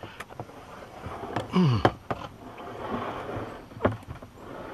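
Kayak hull bumping and scraping against a fallen log lying in the water. Two sharp knocks, a stretch of scraping and splashing in the middle, and a short low groan that falls in pitch about a second and a half in.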